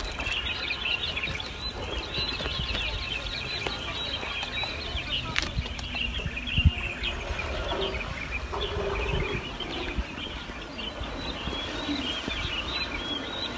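Birds chirping continually, a busy run of short high calls over a low rumble, with one sharp click about halfway through.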